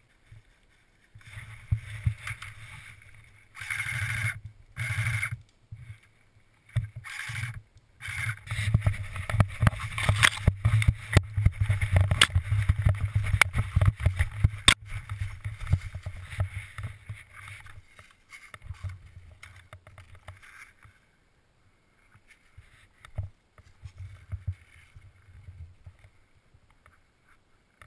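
Footsteps crashing and shuffling through thick dry fallen leaves at a fast pace, with a low rumble underneath. It comes in short bursts at first, is densest from about eight to eighteen seconds in, then thins out to scattered, quieter rustling.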